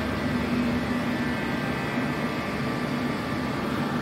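Steady hum of running workshop machinery, a low constant tone with a faint higher whine over it.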